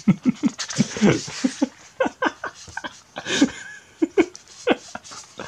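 A person laughing in quick, short bursts, with breathy gasps between the bursts.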